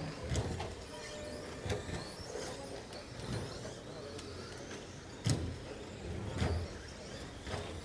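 Radio-controlled stock trucks racing, their electric motors whining up and down in pitch as they accelerate and brake. Sharp clacks come about once a second, the loudest a little after five seconds in.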